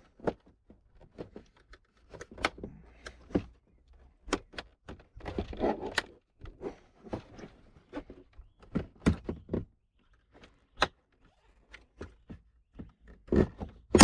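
Scattered clicks, knocks and light thuds of plastic and metal as a Porsche Panamera rear door panel is pulled away from the door and worked loose, with a longer scraping rustle about five seconds in.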